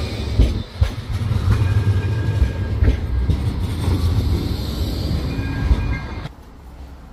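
Bombardier Flexity 2 tram moving close past on its rails: a loud, steady low rumble with a few sharp clicks from the wheels on the track. About six seconds in the sound drops away abruptly to a much quieter background.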